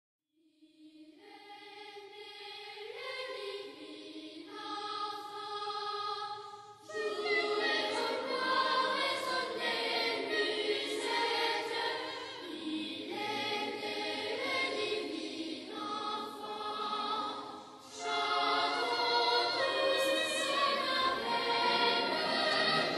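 Choir singing. It starts with a single melodic line, and the full choir comes in about seven seconds in, with another full entry after a short pause near the end.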